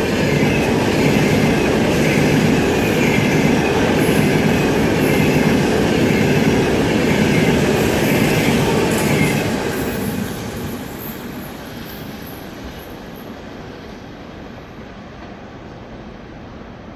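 Passenger train running past on the rails, a steady loud rumble of wheels and track noise that starts to fade away about ten seconds in.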